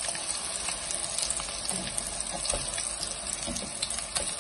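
Sabudana cutlets shallow-frying in oil over medium heat: a steady sizzle, with a few light clicks as a fork and spatula turn them over.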